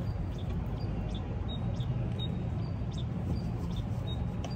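Outdoor ambience: a steady low rumble, with a short high chirp repeating about twice a second.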